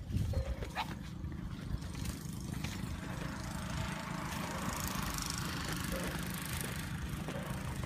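Wind rumbling on the microphone, with a broad outdoor hiss that swells through the middle.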